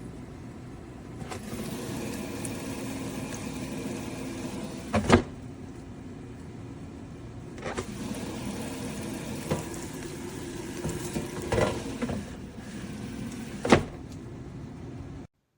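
A small motor running steadily, an air fryer's fan, with five sharp knocks spread through it. It starts and cuts off abruptly.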